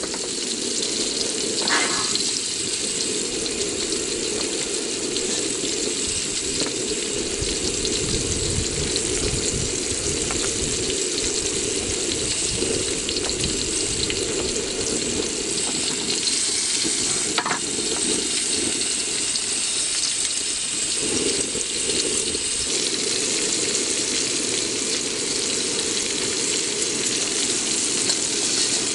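Whole striped red mullet frying in hot oil, the oil sizzling and bubbling steadily around the fish, with a couple of short clicks.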